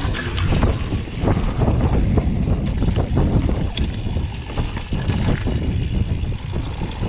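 Wind buffeting the microphone over the rattle and clatter of a full-suspension mountain bike rolling down a rough dirt trail, with many small knocks throughout.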